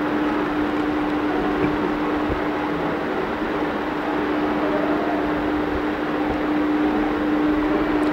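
Steady background hiss with a constant low hum running under it.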